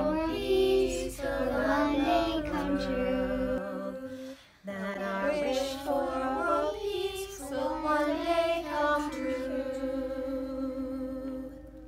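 A children's choir, joined by a woman's voice, singing together. There is a short break about four seconds in, then the singing resumes and ends on a long held note that fades out.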